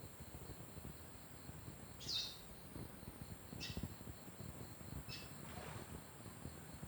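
A bird giving three short, falling chirps a second or so apart, the first the loudest, over a steady high buzz of insects.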